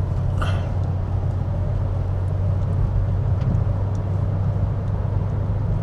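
Steady low drone of a car's engine and tyres heard from inside the cabin while driving.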